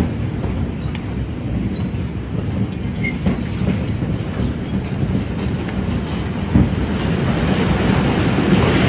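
A loud, steady, low rumbling roar with no clear beat, swelling a little near the end.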